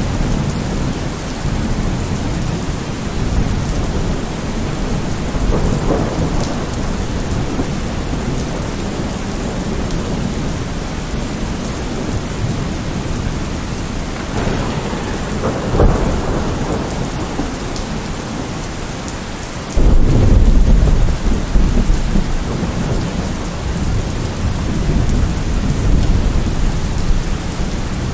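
Steady heavy rain with rolling thunder. Rumbles come about 6 s and 15 s in, and a loud, sudden crack of thunder rumbles on from about 20 s in.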